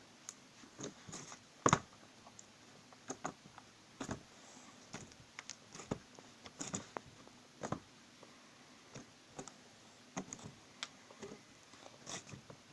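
Slime being squished and poked by hand, making fairly quiet, irregular sticky clicks and pops, the loudest about two seconds in.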